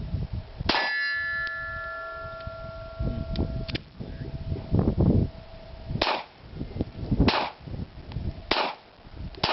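Glock 42 .380 ACP pistol firing single shots at a steel target. The first hit leaves the steel ringing for a few seconds, and about five more shots follow roughly a second or so apart. Wind rumbles on the microphone underneath.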